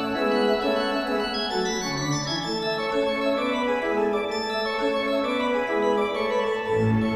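Theme music: held chords with no beat, the bass dropping out at the start and coming back near the end.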